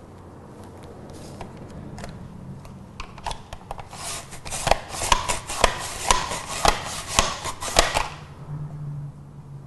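Chef'n Pull'n Slice mandoline being worked back and forth to julienne a carrot: a few scattered clicks, then from about four seconds in a run of crisp slicing strokes, about two a second, that stops about two seconds before the end.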